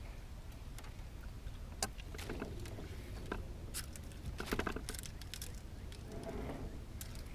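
Scattered clicks, knocks and rustling from handling a freshly caught catfish while measuring it, with a cluster of knocks a little past the middle, over a low steady rumble.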